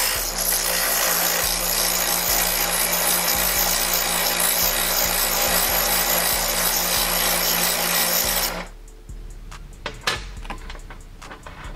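Bench grinder wheel grinding a small stainless-steel spacer made of three washers welded together, held against the wheel in locking pliers, over the steady hum of the grinder motor. The grinding is a bevel cut into the spacer so it clears the weld. It cuts off suddenly about three quarters of the way in.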